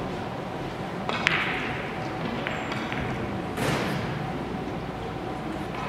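Billiard balls clicking against each other on nearby tables in a large, echoing hall: one sharp click about a second in, a few fainter ticks after it, and a louder knock about three and a half seconds in, over a steady background hum.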